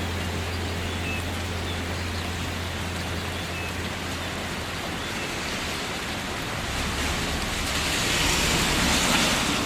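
Steady rain, an even hiss, with a low hum underneath that fades out about halfway through; the rain grows louder near the end.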